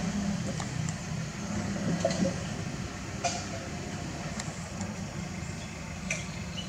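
Steady low hum of an idling engine, with a few faint clicks.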